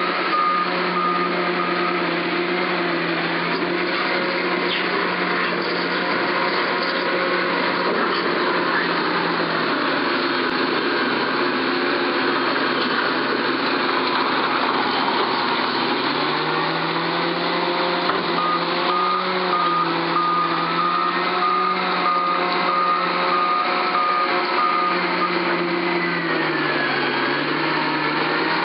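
Diesel engine of a heavy construction machine running steadily, its pitch dropping and recovering a couple of times as it takes load. A reversing alarm beeps in a steady series near the start and again later.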